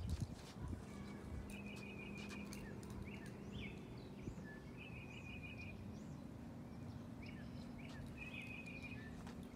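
Birds calling in the background: short bead-like trills repeated every few seconds, with scattered chirps, over a steady low hum.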